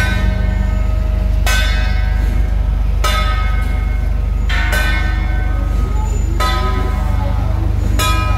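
A metal bell struck six times at an even beat, about every second and a half, each stroke ringing out and fading, over a steady low hum.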